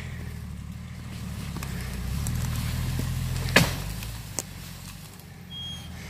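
Off-road SUV engine running under load as the vehicle pulls on a spruce tree to break it. The engine swells from about one and a half seconds in, with a sharp crack about three and a half seconds in and a smaller click shortly after.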